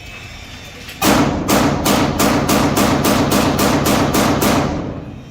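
Glock-pattern pistol test-fired in a rapid string of about a dozen shots, roughly three a second, starting about a second in.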